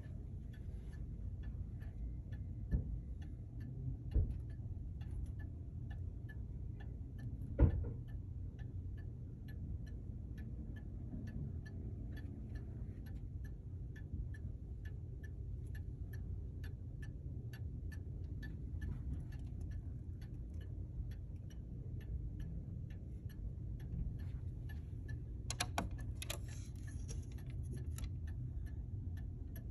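Late-19th-century W&H (Winterhalder & Hofmeier) bracket clock movement ticking steadily, about two ticks a second, over a low hum, with a few dull knocks and a brief rattle near the end.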